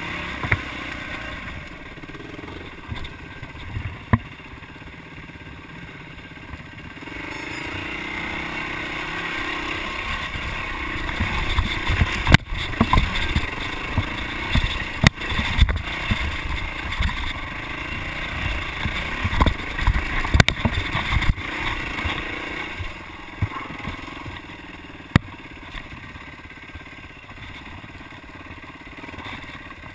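Yamaha dirt bike engine running under throttle on a rough trail, louder and working harder for about fifteen seconds in the middle on a steep climb. Sharp knocks and clatter come from the bike over the bumps, with wind rumbling on the microphone.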